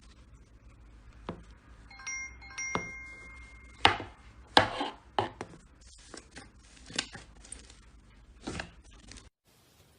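Slime being handled, making a series of sharp clicks and pops at irregular spacing, with a brief ringing, chime-like tone about two seconds in.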